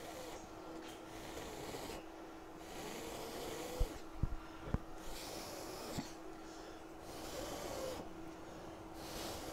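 Soft airy hiss that swells and fades about once a second over a steady hum, with a few light clicks near the middle.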